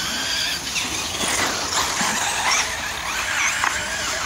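Radio-controlled truggies racing on a dirt track, their motors whining high and gliding up and down in pitch as they accelerate and slow through the corners, over a steady hiss of wheels and loose dirt.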